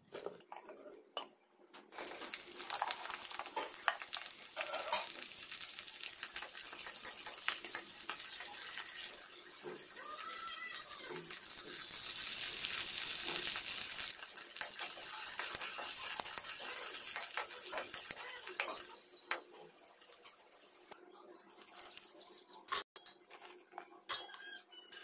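Green chillies and coriander leaves frying in hot oil in a non-stick wok, a steady sizzle with the clicks of stirring. The sizzle starts about two seconds in, is loudest around the middle and dies down after about twenty seconds, leaving a few light clicks near the end.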